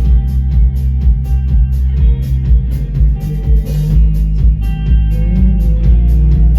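Live rock band playing an instrumental passage: guitar over drum kit and bass, loud and steady, with cymbals struck in a regular beat.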